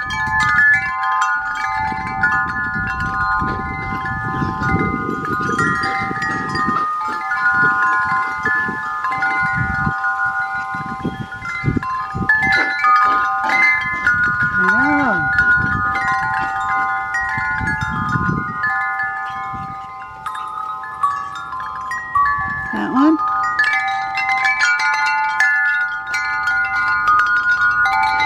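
Hanging metal wind chimes ringing, many overlapping tones sounding together without a break.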